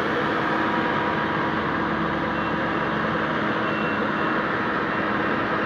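Yanmar YH850 combine harvester running steadily. From about two seconds in, a faint high reversing beeper sounds on and off.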